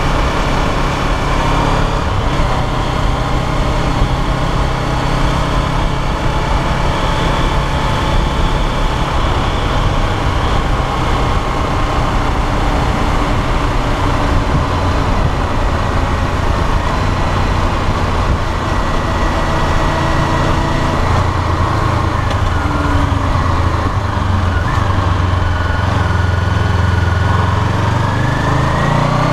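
Honda CBR500R's parallel-twin engine running at cruising speed, with wind and road noise over the tank-mounted camera. The bike slows in the second half, and the engine pitch climbs again near the end.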